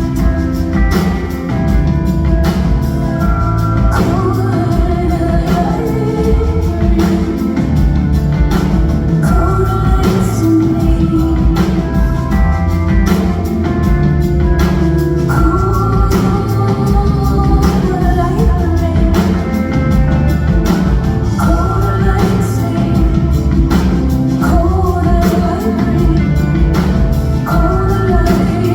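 Live rock song: a woman singing lead over a band with a steady drum beat and heavy bass.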